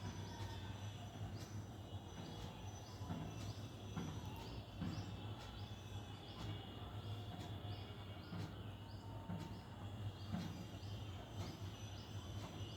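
Outdoor nature ambience: a run of short, high chirps repeating about twice a second through the middle of the stretch, over a steady low hum.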